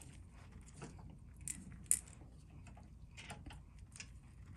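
Faint handling noises of a fishing lure held in a painting clamp: scattered light clicks and small metallic rattles, with two sharper clicks about one and a half and two seconds in.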